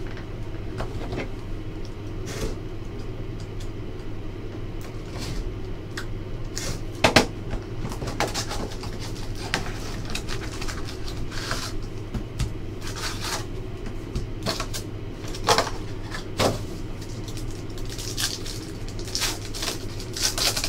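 Cardboard trading-card hobby box (2017-18 Upper Deck Synergy hockey) being opened and its foil packs handled and torn: scattered crinkles, scrapes and taps, the loudest about a third of the way in, over a steady low hum.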